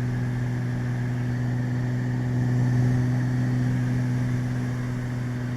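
Steady drone of a Beechcraft Baron's twin piston engines and propellers in the cabin, swelling slightly about halfway through.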